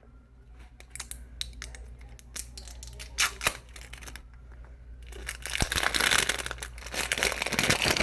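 Plastic tape and wrapping being peeled off a Mini Brands capsule by hand: scattered small clicks and crackles, then a louder, continuous crinkling and tearing from about five seconds in.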